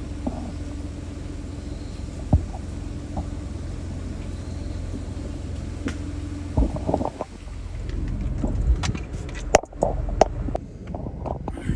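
A steady low rumble with a faint steady hum. From about six and a half seconds in come irregular rustles and knocks, with one sharp click near the end.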